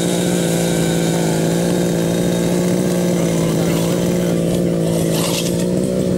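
Modified 29.5 cc two-stroke engine of a 1/5-scale petrol RC monster truck, running at a steady idle through its tuned pipe exhaust.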